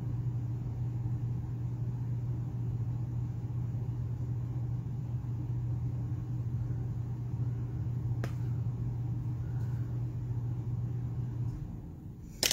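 Steady low-pitched hum that dies away near the end, with a faint click about eight seconds in and a sharp knock at the very end.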